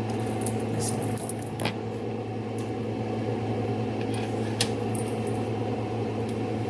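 Stove range-hood fan running with a steady hum, while a burger fries in hot grease in the pan with occasional sharp pops and crackles.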